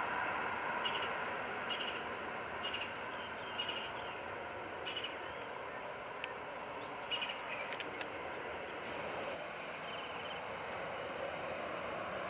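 Steady jet aircraft engine noise, easing slightly after the start, with short high bird chirps repeating about once a second through the first half and a few more later.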